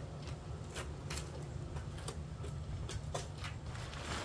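Truck bed tent fabric and poles being handled: several short rustles and clicks over a steady low rumble.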